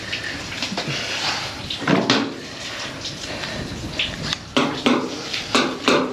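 Light clattering and clicks as metal pliers and a wire fishing leader are handled at a steel cleaning table, over a steady background hiss.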